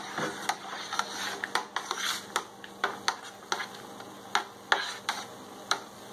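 Long plastic brewing spoon stirring wort and water in a plastic fermenting bucket: the liquid swishes and the spoon clicks against the bucket about two to three times a second.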